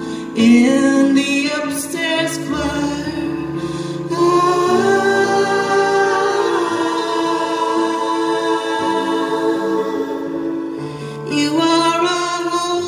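Live song performance: a woman singing the lead with backing singers holding harmonies over stage piano chords, including one long held chord in the middle.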